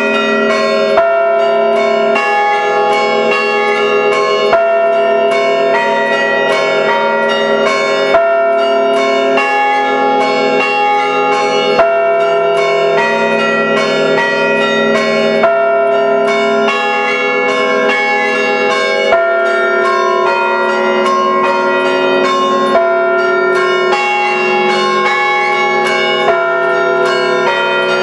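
Five church-tower bells chimed by hand through rope pulls, struck in quick succession in a repeating pattern so that their tones overlap and ring on continuously. A louder stroke comes about every three and a half seconds as the pattern repeats.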